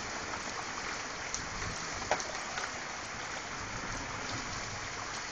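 Heavy thunderstorm rain falling and water pouring down in a steady stream: an even hiss with a few faint drip ticks.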